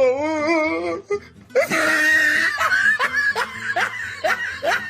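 A wavering, drawn-out voice for about a second, then a run of laughter in short rising bursts, a few a second, until the end.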